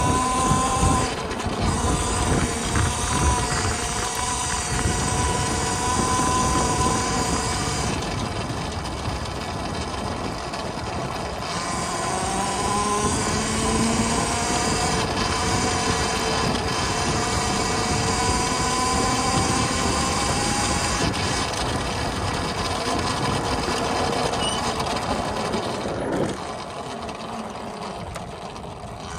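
2022 Volcon Grunt electric off-road motorcycle under way: the electric drivetrain's whine rises and falls in pitch with speed over a rumble of tyres on dirt and wind. It drops quieter in the last few seconds.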